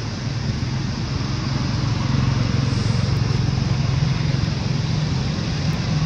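Steady low engine hum of road traffic, growing a little louder about two seconds in.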